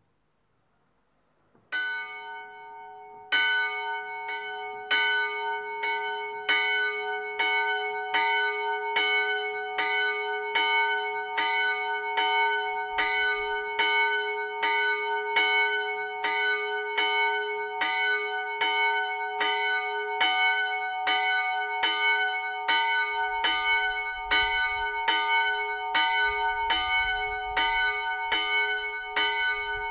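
A single 80 kg, 48 cm bronze church bell cast by Miklós Gombos in 2006, swung by an electric drive and starting to ring. A first weak strike comes about two seconds in. From then on the clapper strikes steadily, about once every 0.8 s, and each stroke rings on into the next.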